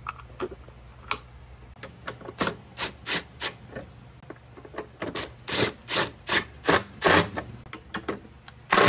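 Irregular clicks and knocks as a motorcycle windshield and its fasteners are fitted to the front fairing, sparse at first and coming thicker about five seconds in. A short, louder burst of noise near the end.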